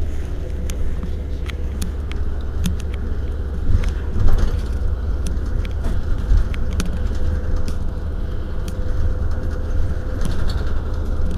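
Iveco Urbanway 12 city bus idling at a standstill: a steady low rumble with a faint steady whine above it and scattered light clicks.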